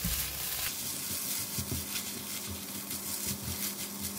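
Fried rice sizzling in a non-stick wok as it is tossed and stirred with a silicone spatula, with soft, irregular knocks of the spatula against the pan over a steady low hum.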